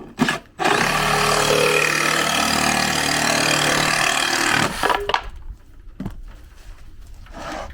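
Makita JR187DZ 18V cordless reciprocating saw cutting 12 mm plywood in one steady run of about four seconds, stopping abruptly, with a few short knocks before and after.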